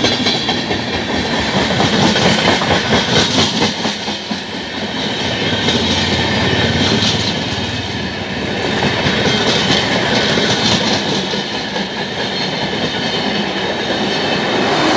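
LHB passenger coaches of a superfast express passing close by at speed: a loud, continuous rush of wheel and rail noise with a rhythmic clickety-clack of wheels, swelling and easing as each coach goes by.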